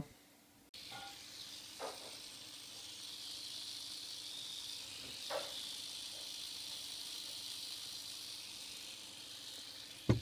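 A steady hiss that starts suddenly a little under a second in, with a couple of faint, short handling knocks.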